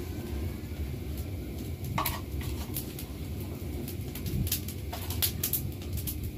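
Open wood fire under a cooking pot crackling, with scattered sharp pops over a low steady rumble.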